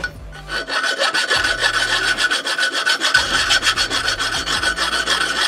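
Hand file rasping back and forth along the edge of a metal gauge frame, a quick, continuous run of strokes that starts about half a second in.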